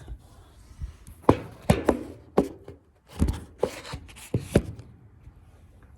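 A run of sharp knocks and taps, about nine in all over a few seconds, as carpet tiles are handled and set down on the floor.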